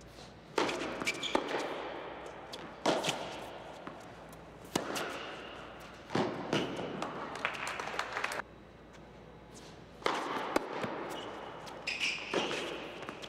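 Tennis rally on an indoor hard court: a series of racket strikes and ball bounces, each ringing on in the large hall, coming about every one and a half to two seconds.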